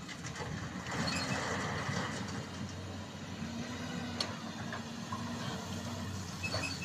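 Excavator's diesel engine running steadily, with a higher steady tone joining partway through and a sharp clank about four seconds in.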